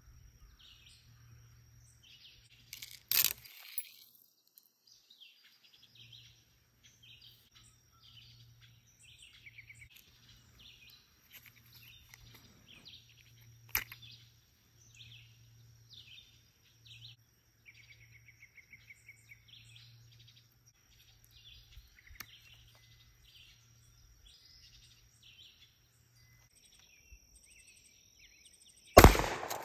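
Birds chirping and singing, with two sharp knocks, one about three seconds in and one about fourteen seconds in. Near the end a 12-gauge shotgun fires once, by far the loudest sound, with a ringing tail.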